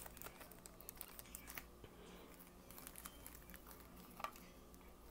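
Faint small clicks and light plastic crinkling from hands handling plastic and small tools on a work mat, thickest in the first second and a half, with one sharper click about four seconds in.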